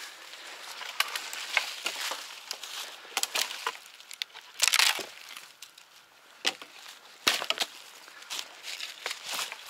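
Branches being gathered and thrown down, with twigs and leaves snapping and crackling in a run of irregular sharp cracks, the loudest cluster about halfway through.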